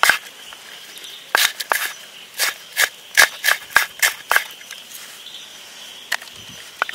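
Kitchen knife chopping an onion on a wooden board: a run of sharp taps over the first four seconds or so, a pause, then a couple more taps near the end. A faint steady high chirring of crickets runs underneath.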